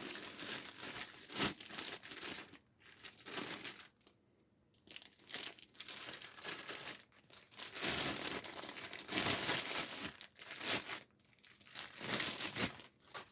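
Packaging being handled: crinkling and rustling in irregular bursts with short pauses, some of it like tearing.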